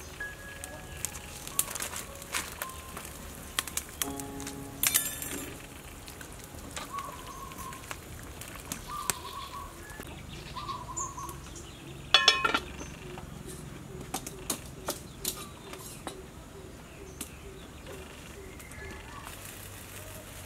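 Ladle clinking against a steel soup pot, sharply about five seconds in and again about twelve seconds in, among scattered small crackles of a wood cooking fire. Birds call in the background.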